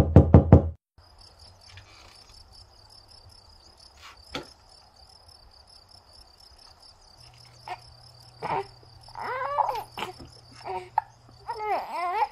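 A rapid run of loud knocks on a front door, about five a second, stopping within the first second. Then crickets chirp steadily, with a low hum in the middle and a few short, high, gliding voice-like sounds near the end.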